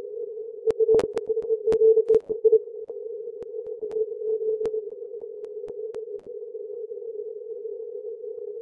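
Receiver audio from a FlexRadio 6500 through a narrow CW filter: a steady narrow band of hissy noise around 450 Hz with weak Morse code signals buried in it. Sharp clicks come several times in the first few seconds, then only now and then.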